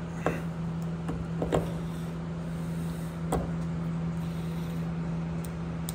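Steady hum of a shop heater running. A few faint clicks come as a plastic thru-hull fitting is pressed and seated in its hole in the hull.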